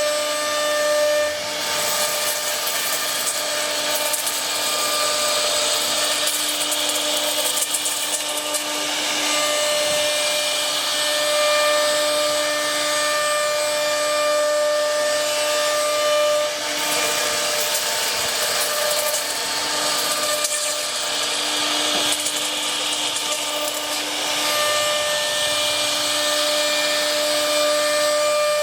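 Electric power tools working wood: a steady motor whine under the hiss of cutting and sanding. The sound changes character several times.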